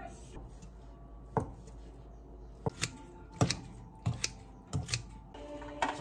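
A handful of short, sharp clicks and knocks, spaced irregularly, from household objects being handled. Soft background music comes in near the end.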